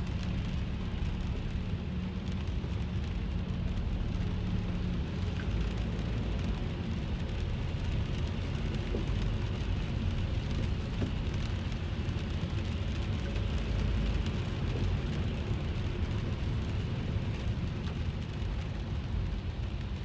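Rain falling on a car, heard from inside the cabin over the steady low rumble of the car on the road.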